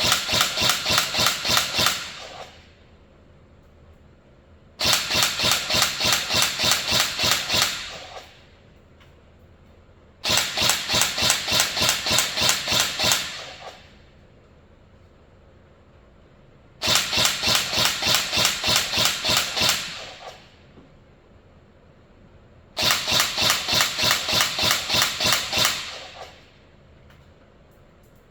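Electric airsoft M4 (INF M4, 14.5-inch, on an 11.1 V setup) firing full-auto in five bursts of about three seconds each, a few seconds apart, each ending with a short fading tail. This is test-firing after a repair of its control circuit, which had been making the gun fire on its own as soon as the battery was connected.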